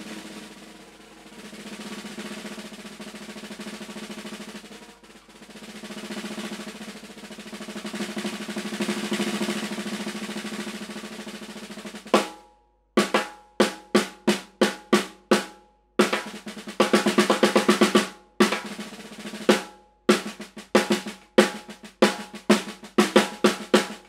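SCD Golden Ash Maple 14 x 6.5 inch snare drum with a Remo Ambassador X Coated head, played with sticks. It opens with a continuous roll that swells louder and softer for about twelve seconds, then breaks into separate strokes and short fast fills, each hit ringing out briefly.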